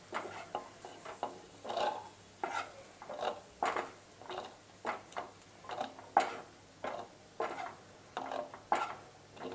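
A spatula scraping buttered sweet corn kernels across a non-stick frying pan and into a bowl, in short repeated strokes about two a second.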